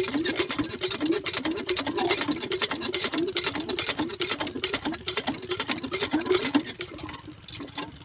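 Small single-cylinder diesel engine driving an irrigation water pump, running with a fast, even mechanical clatter that dips briefly near the end.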